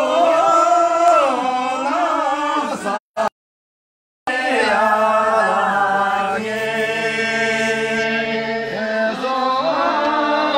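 A group of voices chanting in unison, with long held notes that slide in pitch. The sound drops out completely for about a second, about three seconds in.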